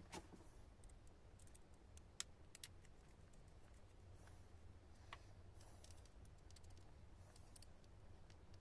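Faint clicks and taps of a small screwdriver and plastic plug parts as a three-pin mains plug is wired onto a power tool's cord, with a few sharper clicks just after the start, around two seconds in and about five seconds in.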